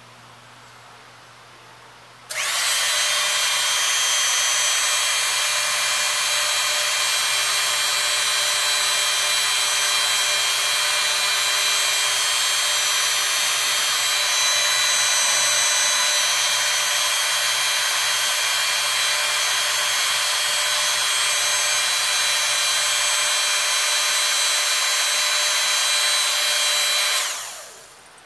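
Hydraulic pump running for a cylinder pressure test: it starts abruptly a couple of seconds in, runs steadily with a high whirring hiss for about 25 seconds, and winds down near the end.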